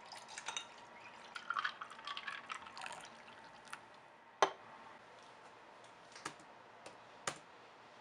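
Iced tea poured from a can over ice cubes in a glass, splashing with small clicks of ice for about three seconds. A few separate sharp clicks follow, the loudest about four and a half seconds in.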